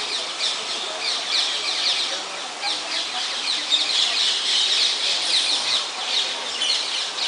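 A dense chorus of birds chirping in the trees, many quick, high, downward-sliding chirps overlapping without a break.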